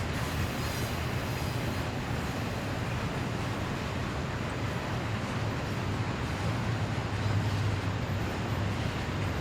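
Long Norfolk Southern freight train rolling around the curve, a steady low rumble of locomotives and cars with no separate clanks or squeals standing out.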